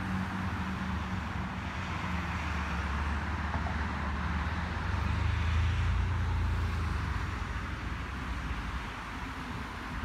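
A motor vehicle's low engine hum, growing louder about halfway through and then fading, over a steady hiss.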